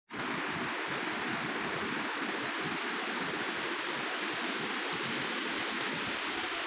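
Steady rushing of a fast river or stream, a dense even hiss of flowing water.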